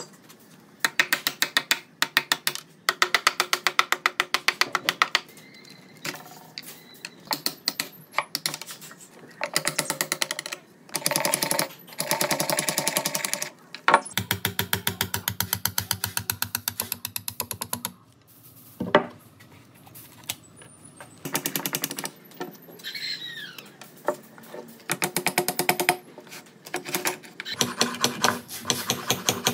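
A power tool running in short bursts of rapid, even tapping, each a second or two long with pauses between. A bird chirps briefly about three-quarters of the way through.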